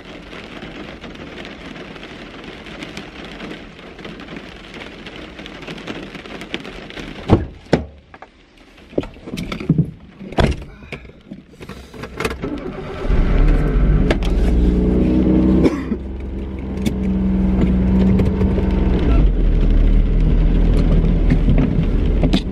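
A steady hiss, then a few sharp knocks and clicks. About thirteen seconds in, a car engine starts and keeps running with a steady low drone.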